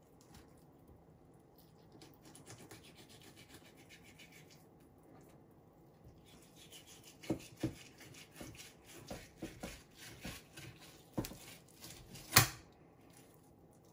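Filleting knife scraping against a wooden chopping board as a cod fillet is skinned, in repeated short strokes. Several sharp knocks of the blade on the board come in the second half, the loudest near the end.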